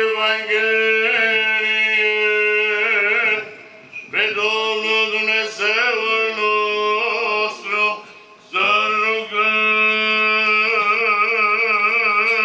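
Orthodox church chant: male voices singing a melismatic line over a steady held low note, in three long phrases with short breaks between them.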